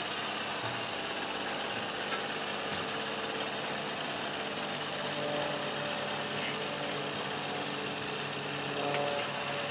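Narrowboat's diesel engine running steadily under a brick bridge arch, with one sharp click about three seconds in.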